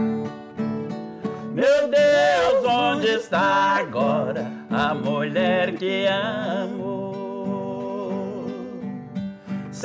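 Twelve-string craviola, tuned Rio Abaixo (open G), picked with a thumbpick alongside an acoustic guitar in a caipira ballad. A man's singing voice comes in about a second and a half in and carries a wavering line for several seconds before the strings play on alone.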